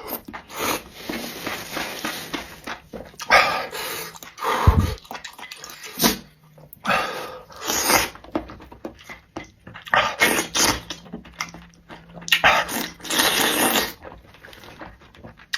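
A person eating close to the microphone: a string of wet slurps and chewing noises, spicy food being sucked in between breaths.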